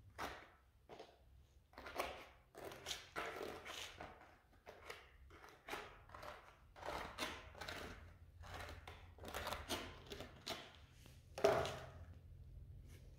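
A steel trowel scraping gritty tile adhesive over a concrete floor in short repeated strokes, about one or two a second, with one louder knock about eleven and a half seconds in.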